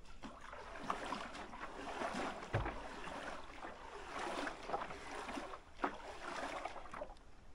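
Leafy twigs and branches rustling and crackling against the bow of a small boat as it is worked into shoreline brush, with a dull knock on the hull about two and a half seconds in.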